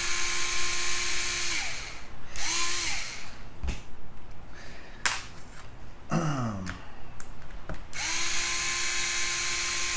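Cordless electric screwdriver backing out chassis screws. It runs at a steady whine for about a second and a half, winds down, then gives a short burst. After a few clicks of handling in the middle, it runs steadily again for the last two seconds.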